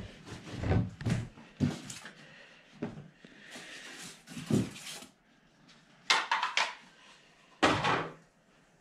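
Hard parts of a quilting frame being handled and set down during unpacking: several dull knocks, then a quick rattle of sharp clicks and one last clatter near the end.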